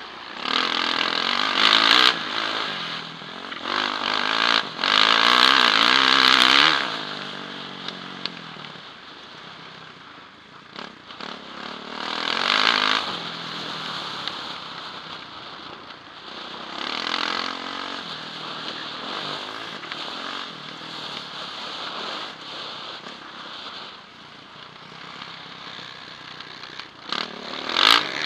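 Yamaha motocross bike's engine, close to a helmet camera, revving hard under full throttle and easing off between pulls. There is a long loud pull over the first seven seconds, shorter ones at about 12 and 17 seconds, and another near the end.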